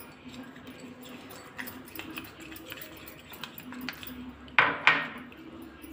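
Metal spoon scraping and clinking lightly against a small bowl as dry maida and cornflour are stirred together, with two louder knocks in quick succession near the end.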